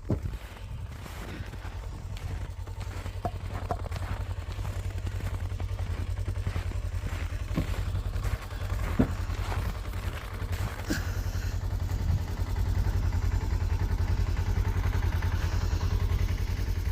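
Ranger side-by-side's engine idling steadily, with a few light knocks and clicks over it.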